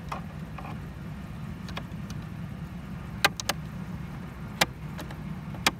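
Flathead screwdriver tip clicking against the plastic tabs of a Dodge Ram side-mirror puddle-light housing as it is pried, working a tab over a plastic piece: three sharp clicks close together about three seconds in, another a little over a second later, and one more near the end, over a steady low hum.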